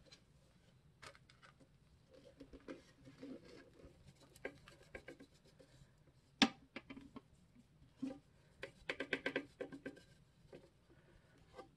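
Plastic dust bin of a Hoover Rewind vacuum being handled and emptied: scattered light clicks and scraping, with one sharp knock about halfway through and a quick run of clicks near the end.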